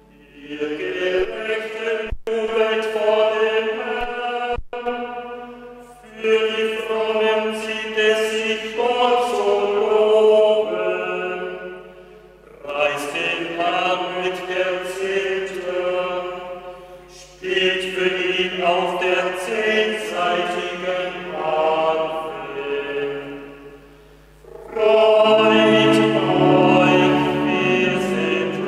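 Unaccompanied liturgical chant sung by a male cantor in phrases of long, held notes with short pauses between. A lower voice joins near the end.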